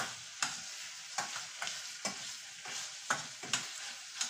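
Shrimp shells frying with onion and garlic in butter and olive oil in a stainless steel saucepan, with a steady sizzle. A spoon stirring them clacks and scrapes against the pan at irregular moments, several times a second or so.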